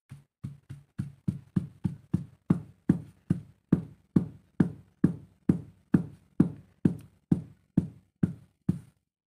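Stone pestle pounding a crumbly, powdery food in a stone mortar: a steady run of dull knocks, about four a second at first and settling to about two a second, stopping shortly before the end.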